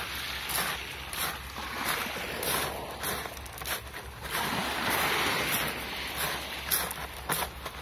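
Small waves washing up onto a pebble beach, the wash swelling and fading every few seconds.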